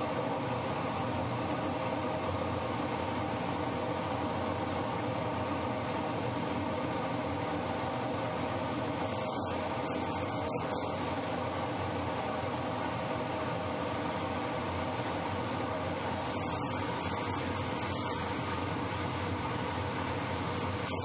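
Steady cockpit noise of the Bloodhound land speed record car: the whine of its Rolls-Royce EJ200 jet engine over a constant rush of air and wheel noise as the car runs down the desert track with its parachute out.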